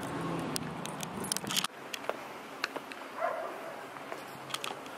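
Scattered light clicks and jingles while walking outdoors, over a low steady hum that drops away about a second and a half in.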